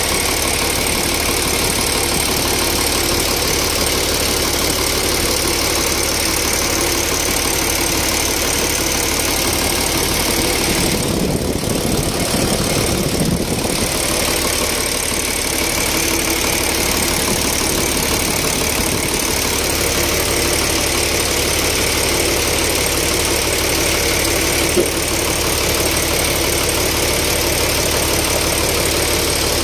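Old truck diesel engine idling steadily, heard up close in the engine bay.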